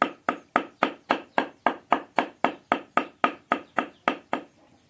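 A large knife mincing food on a thick round wooden chopping block: quick, even knocks about four a second that stop shortly before the end.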